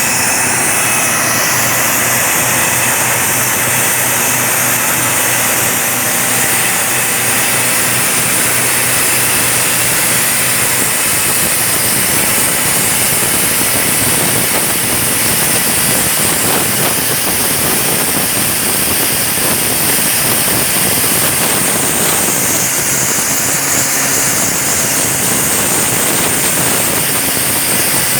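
Atlas Copco RD20 III drill rig running: a loud, steady engine drone with a strong hiss over it.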